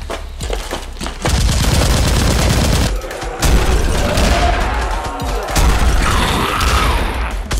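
Rapid bursts of gunfire sound effects, loud and dense, stepping up in loudness about a second in.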